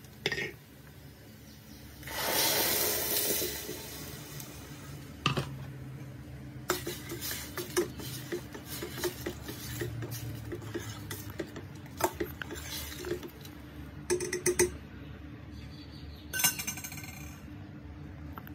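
A metal spoon scraping, tapping and clinking against a steel pressure-cooker pot and a blender jar as a coconut-milk curry mixture is emptied in and stirred. A loud hiss lasts about two seconds near the start, followed by many short taps and scrapes.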